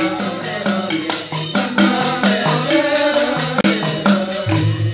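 Balinese genjek: a group of men singing in interlocking vocal parts over a fast, steady beat of rattling hand percussion, with a low part moving in a repeating pattern. A low pulsing hum comes in near the end.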